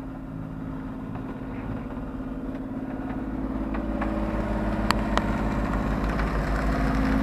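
A sailboat's inboard engine running steadily under way: a constant hum with a low, even throb that grows louder toward the end. Two sharp clicks about five seconds in.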